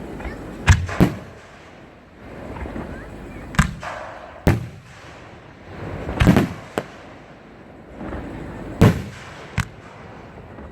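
Fireworks going off: about eight sharp booms, some in quick pairs, every second or two.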